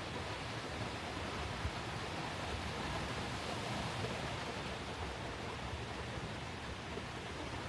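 A steady, even rushing noise, with no tones or distinct events in it.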